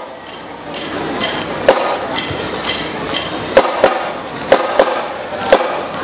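Marching band percussion starting up: sharp drum or stick hits, beginning about a second and a half in and coming irregularly, some in quick pairs, over low background noise.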